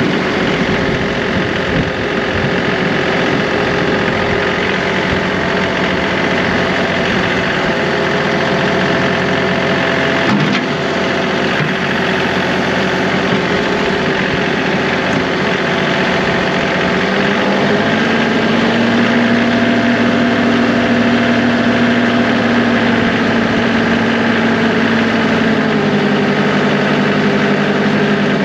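John Deere 2038R compact tractor's three-cylinder diesel engine running steadily. Its revs climb a little past the middle and hold, then settle back down near the end.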